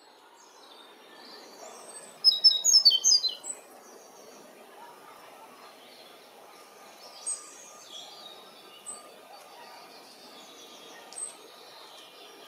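European robin singing: a quick burst of high notes a little over two seconds in, the loudest sound here, then a few scattered single high notes, over steady background noise.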